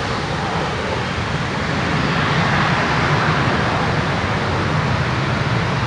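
Twin-engine jet airliner's engines running at high thrust as it rolls away down the runway, heard from behind as a loud rushing noise that builds over the first couple of seconds and then holds steady.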